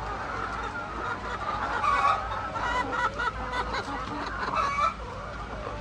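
A flock of hens clucking, with many calls overlapping and louder calls about two seconds in and again near the end.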